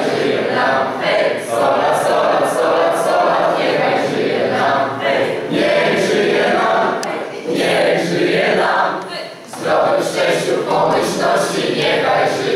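A group of party guests singing a birthday song together without accompaniment, with a brief dip about nine seconds in.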